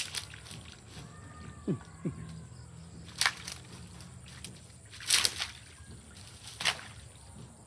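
A dog splashing and lunging in a shallow muddy puddle while hunting fish: three sudden splashes, roughly two seconds apart, over a steady low hum.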